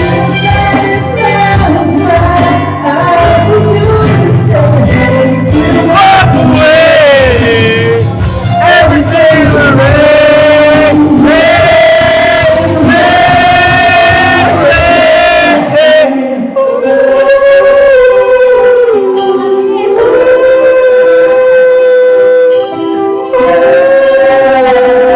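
A solo voice sings a slow ballad with long held, sliding notes over backing music. Over the first part a full accompaniment with a steady low beat runs under it; about two-thirds of the way through the low end drops away and the voice carries on over sparser backing.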